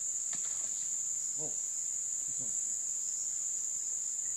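Steady, high-pitched insect drone, one unbroken shrill tone that holds level throughout.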